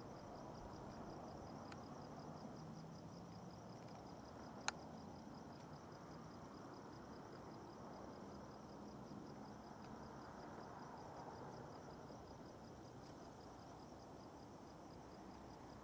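Faint night ambience: crickets chirping in a steady, even high pulse over low background hiss, with a single sharp click about five seconds in.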